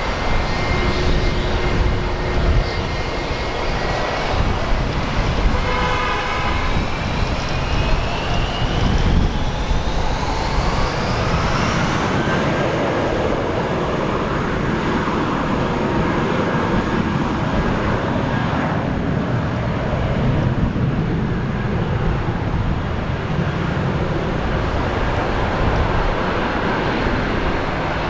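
Jet airliner engines running loudly over a broad rushing noise. A high whine rises steadily in pitch over the first twelve seconds or so.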